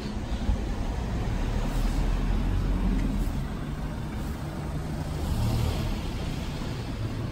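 Road traffic on a city street: passing vehicles' engines and tyres make a steady low rumble that swells twice as vehicles go by.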